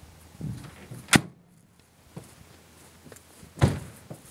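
A few separate knocks and thumps: a dull thump about half a second in, a sharp loud crack a little after one second, and a second loud thump near the end.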